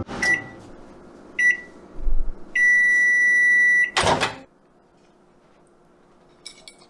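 Microwave oven running with a steady hum, beeping twice briefly and then giving one long beep. About four seconds in the door is popped open with a loud clunk and the hum stops.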